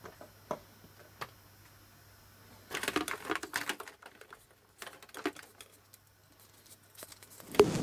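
Plastic surprise eggs and toy wrapping being handled and opened: a few sharp clicks, then about a second of crinkling, then a couple more clicks.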